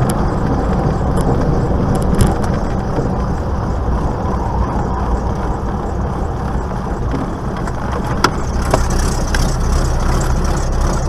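Light aircraft's piston engine and propeller running steadily, heard inside the cockpit as a constant low rumble with a few faint clicks. This is the engine noise being checked after the fuel-injection spider was replaced.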